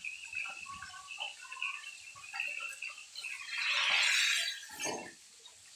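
Fish pieces frying in hot oil in an aluminium kadai, the oil crackling softly. About three and a half seconds in, a spatula moves the fish and the oil sizzles louder for about a second.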